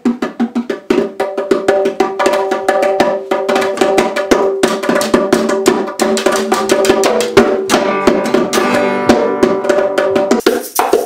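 Acoustic guitar strumming chords under fast hand drumming on small drums, a lively two-man jam with quick, dense strikes throughout.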